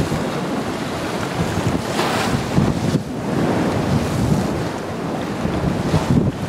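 Wind blowing across the microphone: a rushing, rumbling noise that swells and fades in gusts, strongest about two seconds in.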